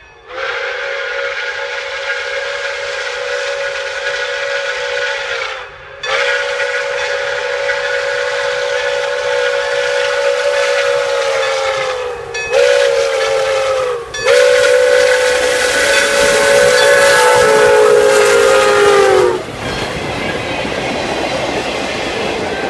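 The Pere Marquette 1225, a 2-8-4 Berkshire steam locomotive, blowing its steam whistle in the grade-crossing signal: two long blasts, a short one and a final long one, several tones sounding together, each sagging in pitch as it closes. After the last blast the locomotive and its cars pass with a loud rushing rumble and the clickety-clack of wheels.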